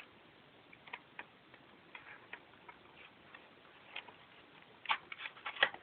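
Packaging being handled and opened: scattered light clicks and taps, coming thicker and quicker near the end.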